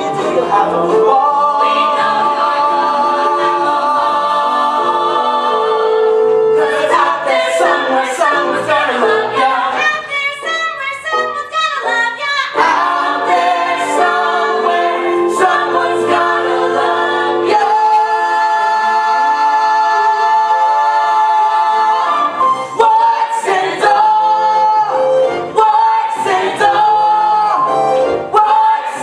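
A group of voices singing a musical-theatre song, holding long notes with vibrato between shorter sung phrases.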